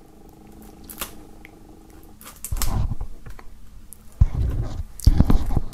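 A blade being drawn along the edge of a shrink-wrapped plastic CD jewel case to slit the film open, with scraping and plastic handling noise. Quiet at first with a single click, then irregular scrapes that get louder near the end.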